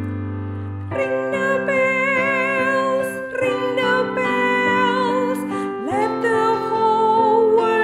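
A female soloist singing a slow hymn with vibrato over piano accompaniment. A held piano chord opens, and the voice enters about a second in.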